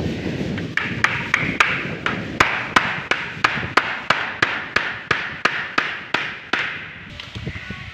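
Hammer tapping a frame-fixing anchor screw through a uPVC window frame into its drilled wall hole: about twenty sharp, even strikes, roughly three a second, stopping a little before the end.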